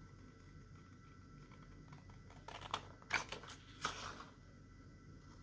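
Scissors cutting through a photo backed on cardstock: a few crisp snips bunched together about halfway through.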